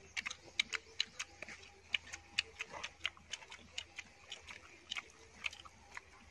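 People eating roasted chicken with their hands, chewing with open-mouth smacking: short sharp clicks come several times a second in an irregular rhythm.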